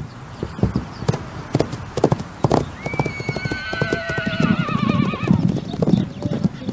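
Many horse hoofbeats in an irregular run, with one horse giving a long, quavering whinny from about three seconds in that wavers and falls slightly in pitch before fading.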